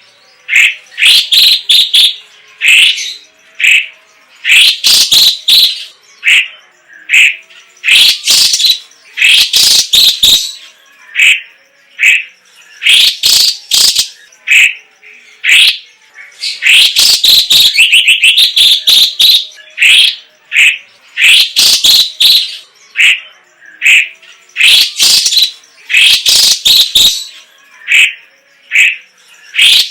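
Cucak ijo cina (cucak cungkok, a Chinese green leafbird) singing loudly: bursts of sharp chirps and whistled phrases every second or two, with a longer rapid run of notes past the middle.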